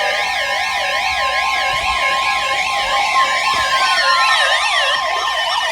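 Several sirens wailing together at different pitches, each rising and falling quickly, over a steady tone; a little past halfway, some tones begin to slide slowly downward.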